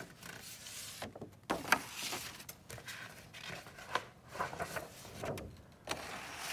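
Sheets of drawing paper rustling and sliding against each other as they are handled and laid on a pile, in irregular rustles with a few sharper taps.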